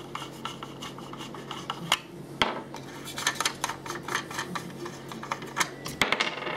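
An old metal coin-operated electricity meter being handled and opened on a wooden bench: its case scrapes and slides on the wood, with a busy run of small clicks and knocks. A few sharper knocks stand out about two seconds in and near the end.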